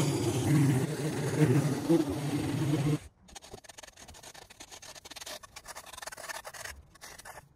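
Small engine of a Maruyama handheld gas lawn tool running steadily for about three seconds, then the sound cuts to faint scraping and crackling.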